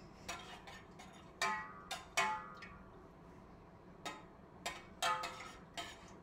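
A spoon stirring sauce in a saucepan, knocking against the pan in several irregular, ringing clinks. The loudest come about a second and a half in, just after two seconds, and again around five seconds.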